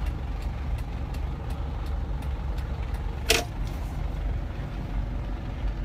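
A vehicle's engine running, heard from inside the cab as a steady low rumble, with a light regular ticking about three times a second and one louder click about three seconds in.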